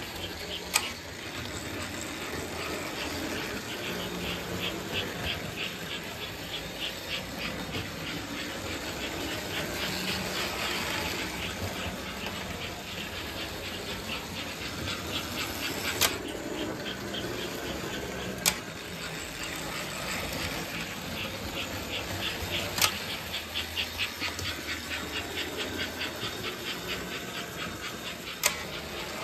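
American Flyer S-gauge model steam locomotives running around the layout, their motors and wheels on the metal track making a steady mechanical run with a fast, even ticking rhythm. About five sharp clicks stand out over it.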